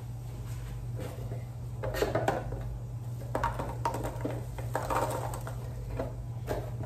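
White packing filler rustling in a plastic bowl and being tipped into cardboard gift boxes, with scattered light knocks and clatters from about two seconds in. A steady low hum runs underneath.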